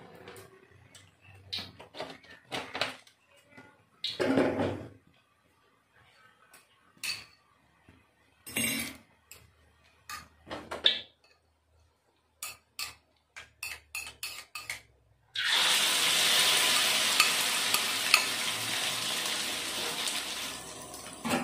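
A scattering of short clinks and knocks of kitchenware, then about fifteen seconds in a sudden loud sizzle as boiled noodles drop into hot oil in an aluminium wok. The sizzle carries on steadily while a spoon stirs the noodles.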